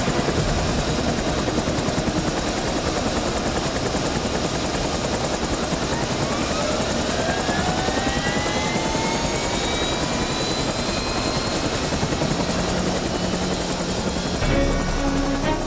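Large turbine helicopter flying low and hovering: steady rotor beat under engine whine. A whine rises in pitch from about six seconds in.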